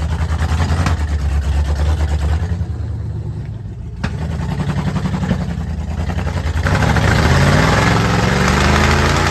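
Off-road Jeep engine running at low revs, easing off briefly, then revving up with a rising pitch about seven seconds in as it climbs. A single sharp click sounds about four seconds in.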